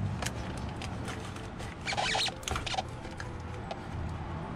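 Small clicks, scrapes and rustles of hands fumbling a cable connector onto a starter motor's solenoid, with a cluster of clicking about two seconds in.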